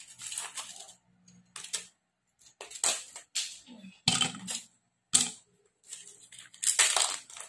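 Ice cubes dropped one by one into a glass: a series of irregular sharp clinks and knocks.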